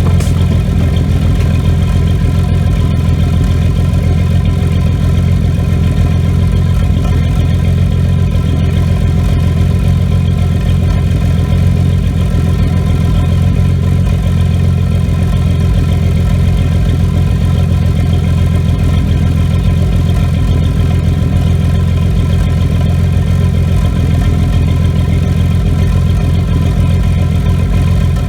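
Supercharged Ford 4.0L SOHC V6 idling steadily, with the slight misfire the owner has had since a nitrous backfire.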